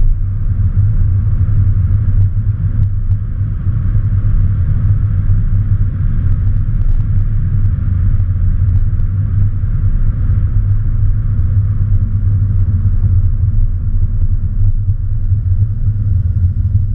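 Steady low road and tyre rumble heard from inside a moving car's cabin, with no engine note. It stays even, with no rise in pitch of a launch or revving.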